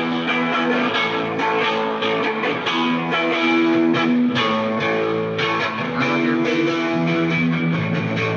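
Guitar-led rock music with electric guitar and bass over a steady beat.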